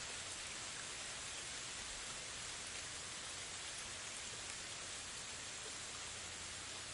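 A steady, even hiss of noise that does not change, with no separate events in it.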